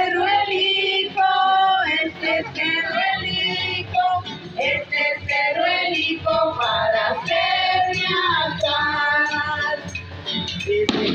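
Women's voices singing together to music, the song going on without a break.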